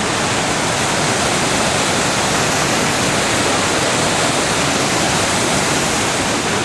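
Waterfall and creek running full, a loud steady rush of falling water.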